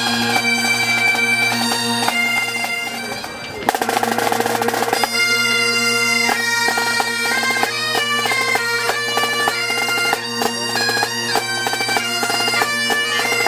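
Great Highland bagpipes playing a tune over their steady drones, with a snare drum accompanying; a short loud stretch of drumming comes in about four seconds in.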